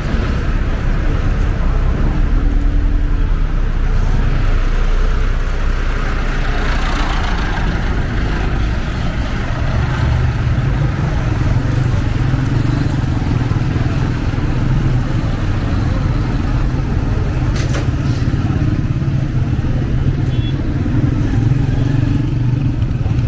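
Road traffic on a town street: vehicle engines running close by, with a steady low engine drone through the second half and a short sharp knock about two-thirds of the way in.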